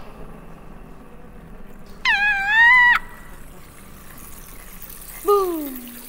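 Two high-pitched vocal sound effects. A wavering squeal lasts about a second, starting some two seconds in, and a shorter call slides down in pitch near the end.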